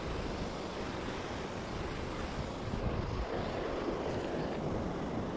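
Steady rushing noise of wind and moving river water, with no distinct events.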